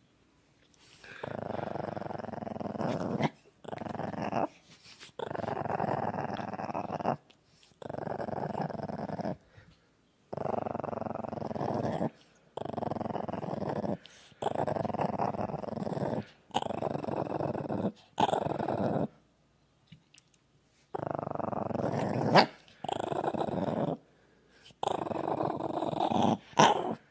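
A Shih Tzu making a rough, rasping rumble on each breath, repeated in runs of about two seconds with short pauses between, and two sharper, louder catches near the end.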